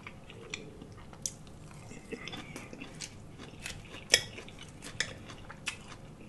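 Close-miked mukbang chewing and biting of salad, with scattered sharp crunches and mouth clicks, the loudest about four seconds in.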